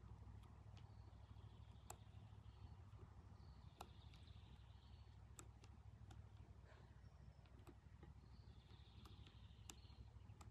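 Near silence: a faint outdoor background with a low steady rumble, a few faint ticks, and faint distant bird chirps three times.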